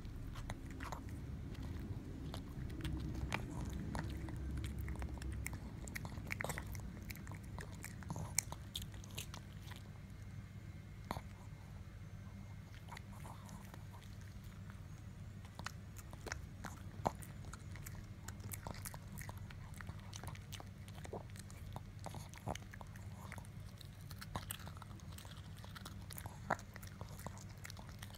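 A drowsy Pekingese chewing a biscuit: irregular crisp crunches and clicks, spaced unevenly throughout. A low rumble runs under the first few seconds.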